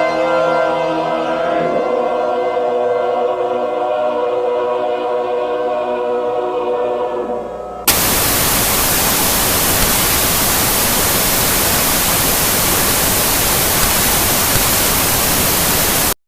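Slow music of held, steady chords, softening over its last seconds. About eight seconds in it cuts abruptly to loud, even static hiss, which stops dead just before the end: the station signing off the air.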